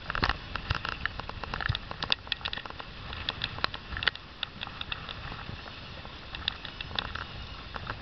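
Gale-force wind buffeting the microphone with a low rumble, broken by irregular sharp clicks and crackles several times a second.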